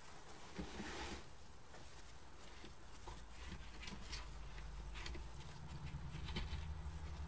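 Faint, scattered rustles and crinkles of wire-edged ribbon and a tinsel tie being handled and twisted tight on a bow-making peg board. A low steady hum comes in about halfway through.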